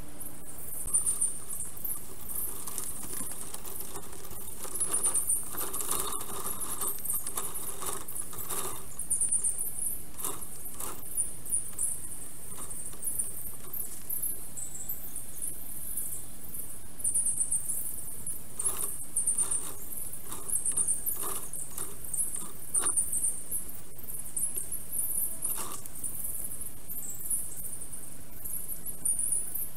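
Forest bird chorus from the nest-camera microphone, sped up by the time-lapse into continuous high-pitched squeaky chirping, with scattered short clicks and knocks.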